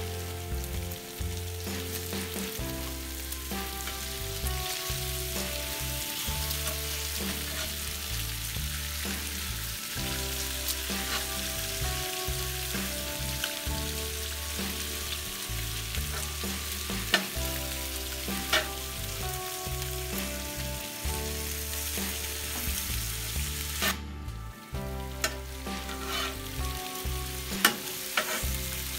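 Bacon and chicken sizzling steadily on a hot porcelain-enameled cast iron griddle on a propane gas grill, with a few sharp clicks about halfway and near the end. Background music with a steady bass plays under it.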